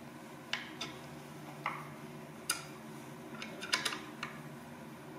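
Light metallic clicks and taps as a hex key is fitted into the socket of a bolt in a maple post and turned, about six scattered clicks, over a low steady hum.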